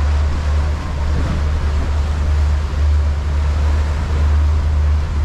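A fishing boat's engine running at a steady low drone while trolling, with wind and water rushing past the hull.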